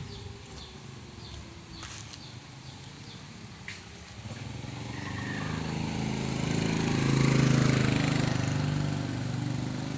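A motor vehicle passes: its engine grows louder from about four seconds in, is loudest a little past the middle, then fades away.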